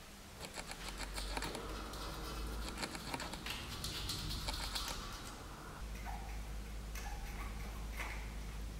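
Light clicks and rubbing as a gloved hand and rag wipe the splined end of a BMW E39 rear drive axle and hub, with a steady low hum behind.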